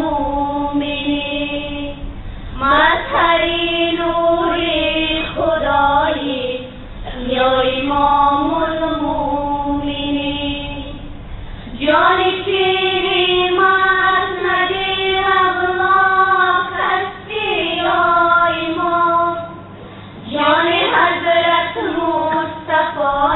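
Devotional song sung by a female voice in long, drawn-out phrases with held notes.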